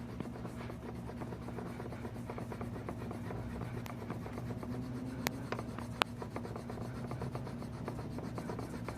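An eraser rubbing rapidly back and forth on a white plastic door handle, scrubbing off dirt and grime. Two sharp clicks come about five and six seconds in, over a steady low hum.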